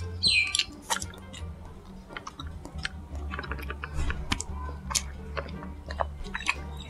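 A person drinking boba milk tea through a straw and chewing the tapioca pearls: irregular soft wet clicks of chewing and sipping.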